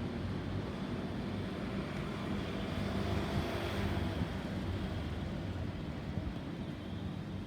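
A motor vehicle's engine running steadily with a low hum, under road traffic noise.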